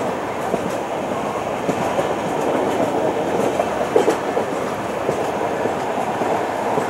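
Express train coach running at speed, heard through an open window: steady rumble and clatter of wheels on the rails, with a sharper knock about four seconds in.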